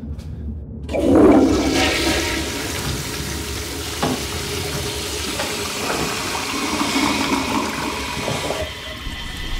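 Toilet flushing: a sudden rush of water starts about a second in, runs steadily for several seconds and dies down near the end.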